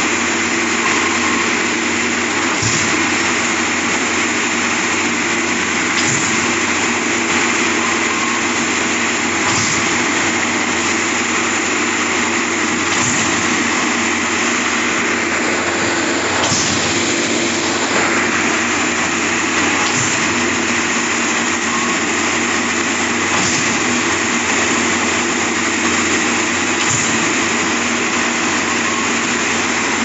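Trailer-mounted diesel concrete pump running steadily under load, with a short knock about every three and a half seconds as its pumping strokes change over.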